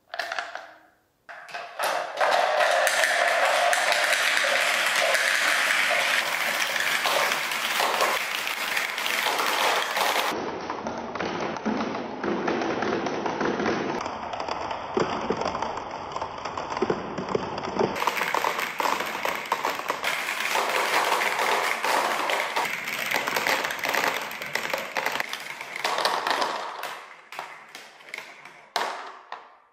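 Many hollow plastic balls clattering and rolling down clear plastic marble-run tracks and dropping into a plastic tray, a dense continuous rattle of taps. It starts with a short burst as the balls are tipped in and thins out near the end.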